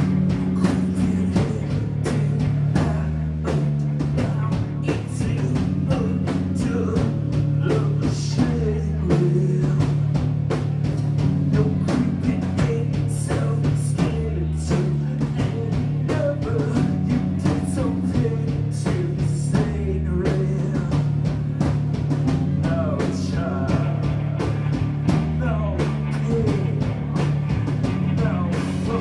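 A noise-rock band playing live: a drum kit beating a steady driving rhythm under a low, droning bass line that shifts pitch every couple of seconds, with guitar and wavering melodic lines above.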